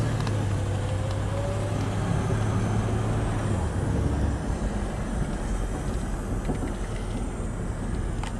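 1961 Cadillac Series 62's 390 cubic-inch V8 running, heard from inside the car's cabin as a steady low hum that turns rougher about three and a half seconds in.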